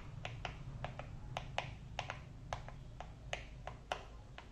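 Typing on a mechanical keyboard fitted with Akko Red & Blue Samurai PBT double-shot, ASA-profile keycaps: irregular keystrokes, about four or five a second.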